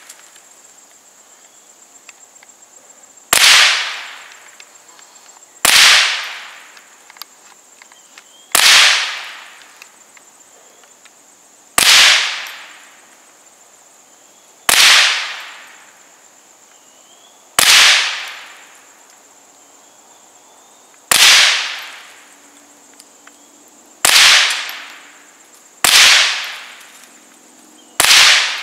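Marlin Model 60 semi-automatic .22 LR rifle firing single, deliberately paced shots, ten in all, about two to three and a half seconds apart. Each is a sharp crack with a short echoing tail.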